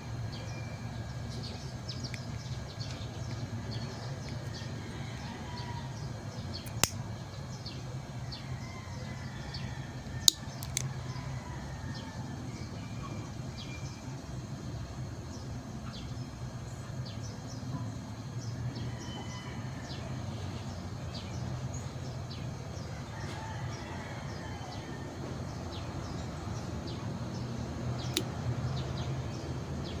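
Outdoor background: a steady low hum with faint bird chirps, broken by a few sharp clicks, one about seven seconds in, two close together around ten seconds, and one near the end.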